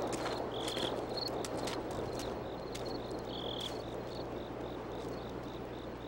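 Outdoor ambience of chirping insects: short high chirps repeat several times a second, with a longer buzzing call about half a second in and again about three seconds in, over a soft steady background hiss.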